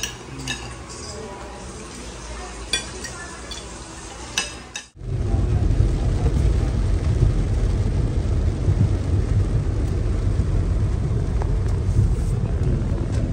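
For about five seconds, scattered clinks of dishes and cutlery against the murmur of a busy eatery. Then it cuts suddenly to a loud, steady, low rumbling noise that runs to the end.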